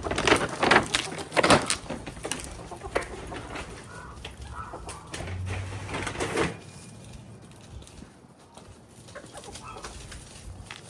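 Hens clucking, with a burst of sharp clicks and rustles in the first two seconds.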